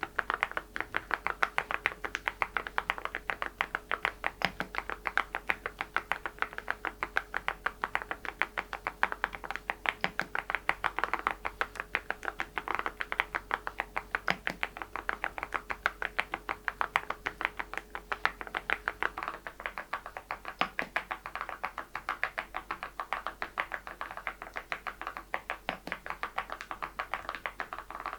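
Steady typing on an Adelie mechanical keyboard with Cerakey ceramic keycaps: quick, irregular key clacks, several a second, going on throughout.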